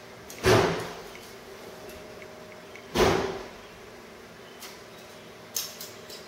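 Two heavy knocks about two and a half seconds apart, each dying away quickly, then a few light clicks near the end.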